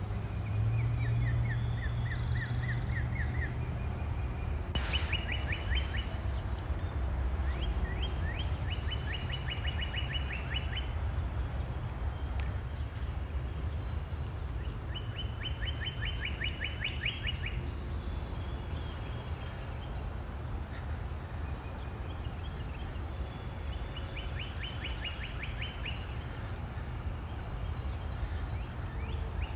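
A songbird singing a rapid trill of evenly spaced notes, each trill lasting two to three seconds and repeated every several seconds, over a steady low background rush.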